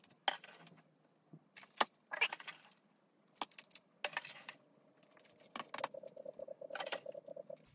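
Dry substrate of coco fibre, dried leaves and moss being scooped with a plastic scoop and poured into a plastic enclosure: a series of short, crisp rustling pours. A faint fast rhythmic buzz runs under the last couple of seconds.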